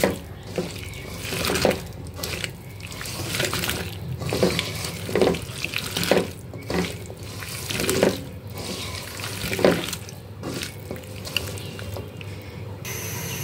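Bitter gourd and potato pieces coated in oil and mustard-spice paste being squeezed and mixed by hand in a metal wok: wet squelching and scraping strokes, roughly one a second.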